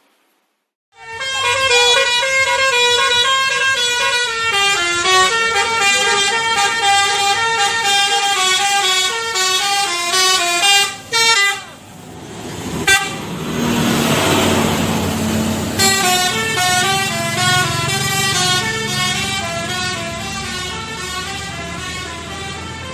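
A Telolet Basuri musical bus horn playing a tune in quick stepping notes. It breaks off about eleven seconds in, a loud rush of noise with a low hum follows, and then the horn melody starts again.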